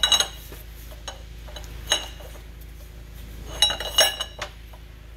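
Metal pipe clinking against the pump's steel shaft and bearing as it is slid over the shaft as a pressing sleeve: a few sharp, ringing metallic clinks at the start, one about two seconds in, and a quick cluster around three and a half to four seconds.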